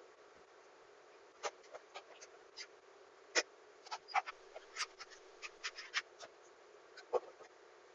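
A series of irregular light clicks and scratches, a dozen or more short ticks starting about a second and a half in, over a faint steady hum.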